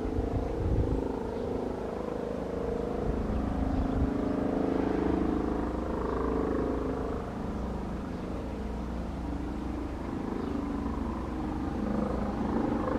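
Airbus Helicopters AS365N3+ Dauphin 2 helicopter circling at a distance: a steady rotor and turbine drone that swells a little in the middle and eases off again.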